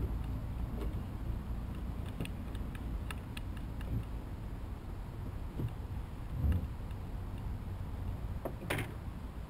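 A steady low rumble with scattered light clicks and knocks as a mooring rope is handled against the side of an aluminium boat, and one sharper clatter near the end.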